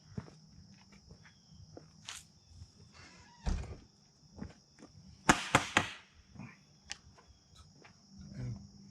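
Scattered knocks and clicks of hands-on work, with a dull thud about three and a half seconds in and a quick burst of sharp clicks around five and a half seconds, the loudest sound. A steady thin high insect drone sits behind them. No engine cranks or runs.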